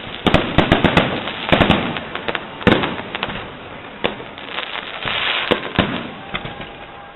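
Fireworks going off: rapid clusters of sharp bangs and pops, with a spell of crackling about five seconds in.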